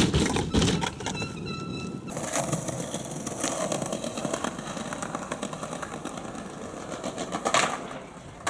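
Skateboard wheels rolling over concrete with a continuous rattling rumble, after a couple of sharp board clacks at the start. A loud board impact comes near the end.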